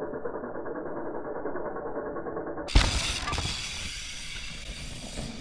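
Mountain bike rattling and clattering as it rolls down a rocky trail, muffled. A little over halfway through, one sudden loud knock, after which an even outdoor hiss like wind takes over.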